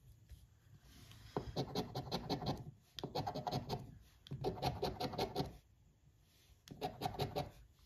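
A coin scratching the coating off a scratch-off lottery ticket, in four short bouts of quick scratchy strokes with brief pauses between them.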